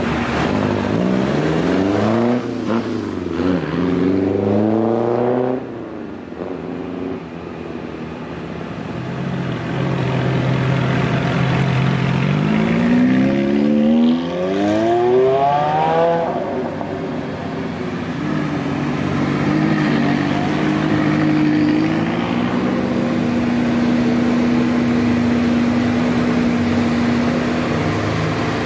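Sports car engines revving as cars pull away one after another. Two rises and falls in revs come in the first few seconds and a longer rising rev comes about halfway through. After that an engine runs steadily at low revs, the Ferrari 599's V12 rolling off slowly near the end.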